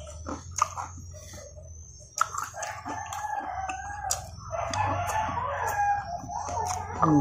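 A rooster crowing, a long harsh call lasting several seconds that starts about two seconds in, over short crisp clicks of chewing crispy fried chicken.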